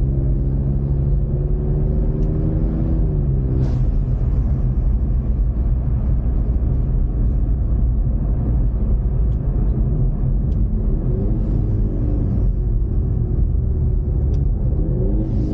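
Ford Mustang EcoBoost's turbocharged four-cylinder engine and road noise heard inside the cabin while driving. The engine note climbs slowly and then drops about three to four seconds in, with a short burst of hiss as it falls. Further rises and dips in pitch come near the end.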